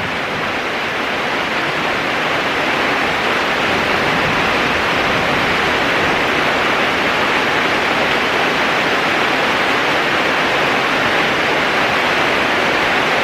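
Heavy rain pouring down in a steady, dense hiss that swells a little over the first couple of seconds and then holds.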